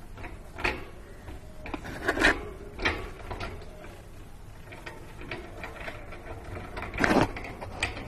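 A lovebird pulling and swinging its hanging bead toy: the beads clack and rattle in irregular short clatters, loudest about two seconds in and again near seven seconds.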